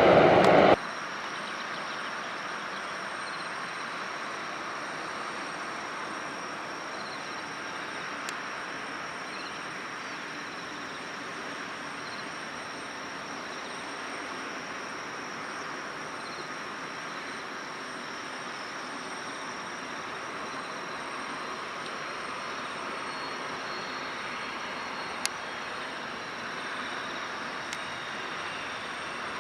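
Loud aircraft engine noise that cuts off abruptly under a second in, leaving a steady, even background hum of distant aircraft engines with a faint high steady tone and a few small clicks.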